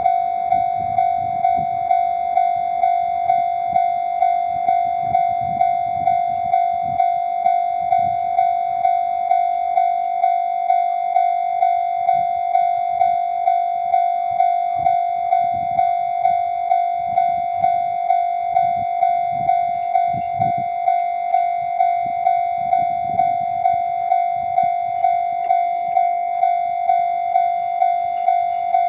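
Japanese railway level-crossing warning bell ringing its electronic ding over and over, evenly at about one and a half strikes a second, signalling that a train is approaching and the crossing is closed.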